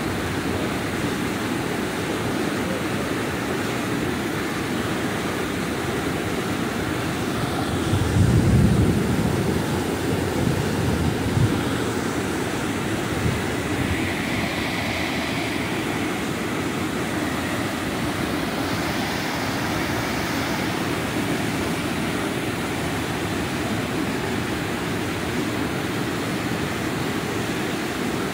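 White water rushing steadily over a low river dam spillway. There is a brief low rumble about eight seconds in.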